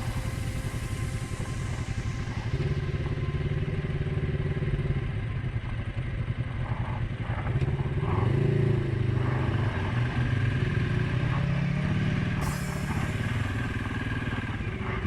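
Single-cylinder engine of a 2019 Suzuki KingQuad 750 ATV running on a trail ride. The pitch rises and falls from about six seconds in as the throttle is opened and eased off.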